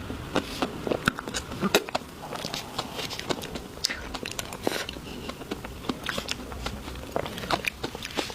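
Close-miked eating sounds of desserts being bitten and chewed, with many sharp, irregular crackly clicks.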